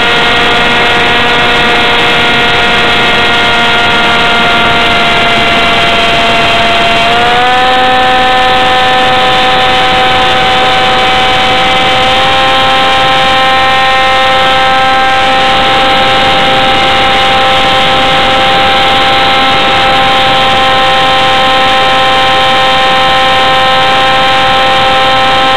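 RC model jet's electric motor and fan, heard from the onboard camera, running in flight with a loud steady whine. The pitch steps up about seven seconds in and again a few seconds later as the throttle is opened, and starts to drop right at the end.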